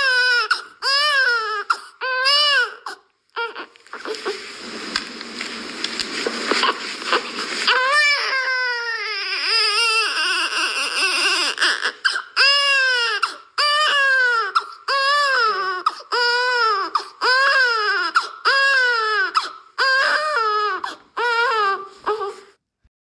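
Infant crying: a long run of short wailing cries, each rising then falling in pitch, about one a second, broken in the middle by a few seconds of breathy, noisy fussing. The crying stops abruptly near the end.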